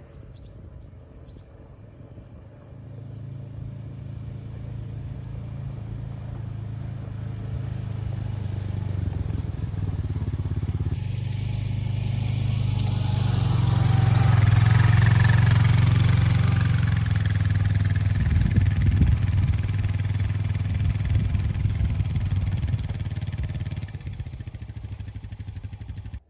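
A motor vehicle's engine running steadily, its low hum growing louder through the first half and then easing off.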